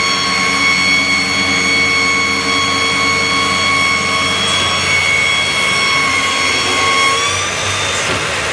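Omaksan Holemaster 100 SL NC drilling machine running, its motors giving a steady, high, many-toned whine; near the end the pitch rises slightly.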